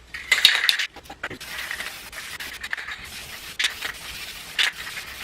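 Paint being applied to a 3D-printed plastic skull piece: a noisy rubbing hiss in irregular strokes, the loudest about half a second in.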